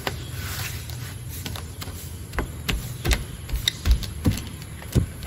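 A string of sharp clicks and soft thumps from hands working a car door and its rubber window trim, over a steady low hum. The clicks begin about halfway through and come irregularly.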